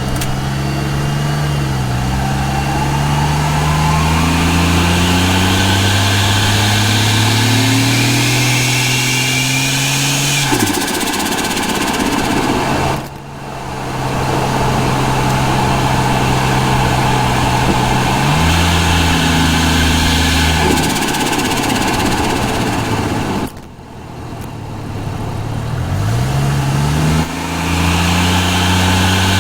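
Ford Falcon G6E Turbo's turbocharged Barra inline-six heard from the engine bay: the engine note climbs with the turbo spooling up, then falls away as the throttle is lifted, with turbo flutter. This repeats several times, and the sound drops away sharply twice, about halfway through and again about three-quarters of the way through.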